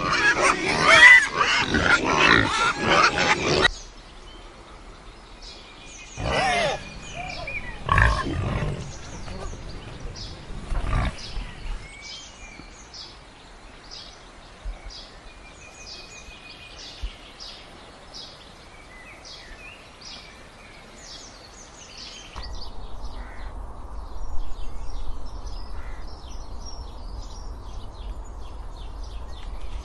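A crowd of piglets squealing and grunting loudly, stopping suddenly about four seconds in. After that, a few scattered pig grunts over birds chirping, and later a steady outdoor background with birdsong.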